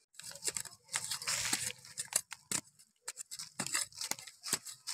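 Machete blade digging and scraping into dry soil and leaf litter: an irregular run of sharp scrapes, chops and dry-leaf crackles.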